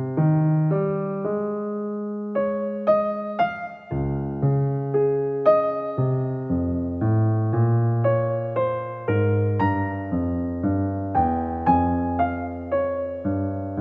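Background music of a solo piano playing a melody over held low notes, with new notes struck about twice a second.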